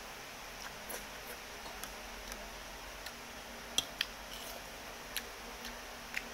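Close-miked eating sounds: scattered sharp clicks and ticks of wet chewing and a metal spoon and fork against a ceramic bowl, the loudest pair about four seconds in, over a steady low hiss.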